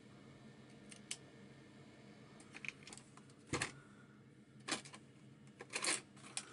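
Series of sharp mechanical clicks and clunks from the open VHS deck of a Hitachi VT-680ME portable video recorder as its cassette mechanism works, over a faint steady hum; the loudest click comes about halfway through.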